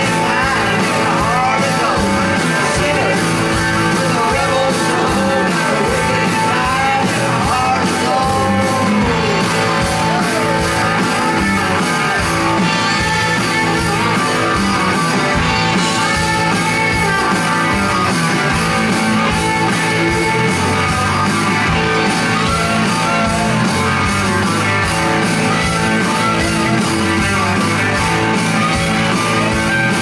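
Live rock band playing: electric guitars, bass and drum kit at a steady beat, with a lead vocal over roughly the first ten seconds before the guitars carry on without singing.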